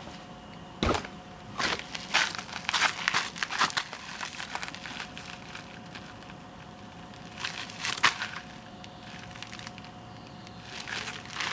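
Footsteps crunching on loose gravel in spells, about two to four seconds in, briefly around eight seconds and again near the end, with a single sharp knock about a second in. A faint steady hum sits underneath.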